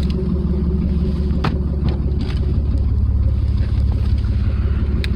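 Dodge Dakota pickup's engine running with a steady low rumble, with a couple of faint clicks.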